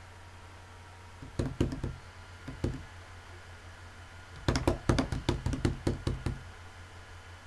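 Quick knocks on a hard surface in three clusters: about four a second and a half in, two more a second later, then a run of about ten rapid knocks from four and a half to six seconds in. A low steady hum lies underneath.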